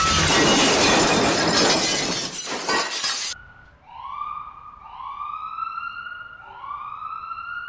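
Crash sound effect with glass shattering, a loud rush of noise that cuts off abruptly about three seconds in. It is followed by an emergency-vehicle siren rising in pitch in repeated swoops, about four of them.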